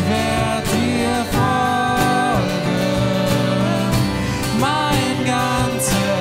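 Live acoustic worship song: acoustic guitars strummed with a cajon beating out the rhythm, and a voice singing long held notes.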